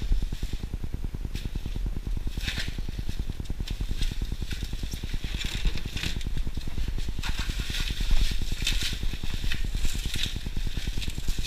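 Plastic cling film crinkling and rustling in irregular bursts as it is rolled tightly around a tuna loin, over a steady low rumble.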